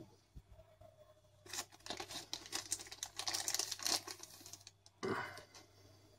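Clear plastic protective sleeve crinkling and crackling as a smartphone is worked out of it by hand, with a short rustle about five seconds in.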